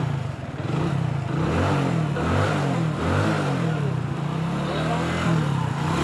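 Hero Passion Pro's single-cylinder four-stroke engine running just after starting, its pitch rising and falling repeatedly as the speed varies. A new timing chain kit, tensioner and oil pump gear are fitted, and the engine now sounds good to the owner.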